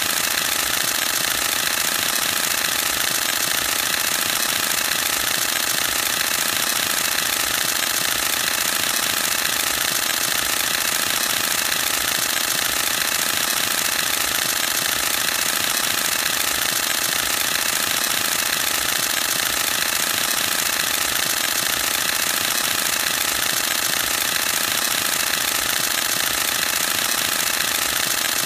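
Canon EOS-1D X Mark II DSLR firing a continuous high-speed burst, its mirror and shutter clattering in an unbroken, even stream of rapid clicks at about fourteen frames a second.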